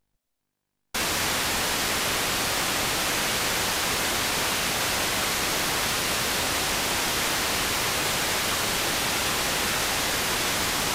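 Steady, loud hiss of static from a blank video recording, starting abruptly about a second in after a moment of dead silence.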